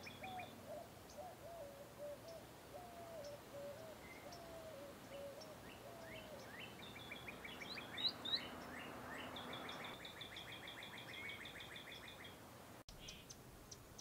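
Faint birds calling: a series of short, low notes over the first six seconds or so, then a rapid run of high chips from about seven to twelve seconds in.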